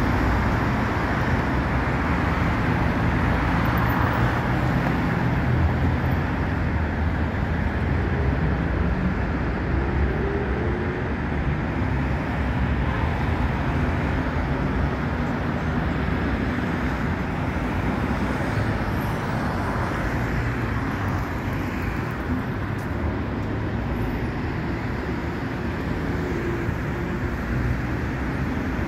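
Steady noise of car and bus traffic on a busy city road, with one vehicle's engine rising in pitch as it accelerates about nine to eleven seconds in.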